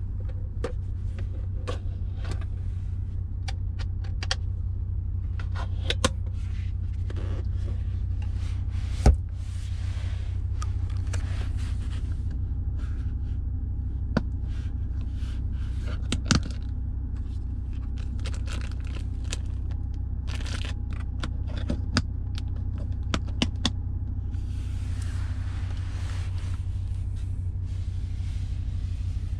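Hands handling the Audi RS3's rear seat: the fold-down centre armrest and leather upholstery give scattered clicks, knocks and rubbing scrapes, the sharpest knock about nine seconds in. A steady low rumble runs underneath.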